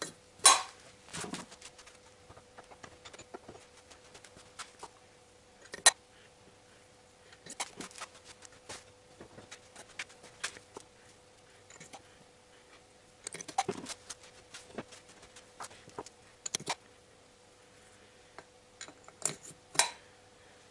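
Engine valves being slid into the guides of a VAZ-2111 8-valve cast aluminium cylinder head and dropped onto their lapped seats, giving scattered metallic clicks and clinks with quiet gaps between. The loudest taps come about half a second and about six seconds in.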